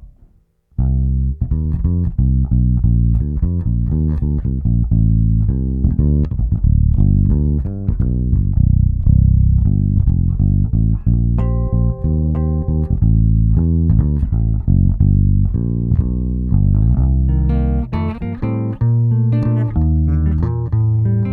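Electric bass guitar played through a compressor, a continuous run of plucked notes with a strong low end. It starts about a second in, and a few higher held notes ring out around the middle.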